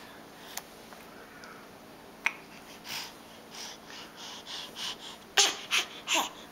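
A baby's soft breathy huffs with a couple of sharp clicks, then three quick, loud breathy bursts of excited laughter near the end, the last rising into a squeal.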